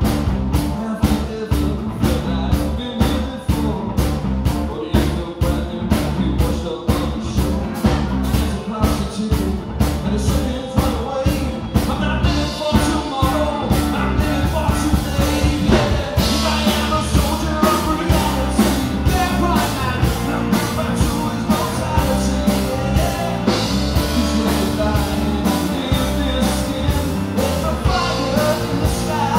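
Live rock band playing through a club PA: electric guitar over a steady drum beat, with some singing. The music gets fuller and brighter about twelve seconds in.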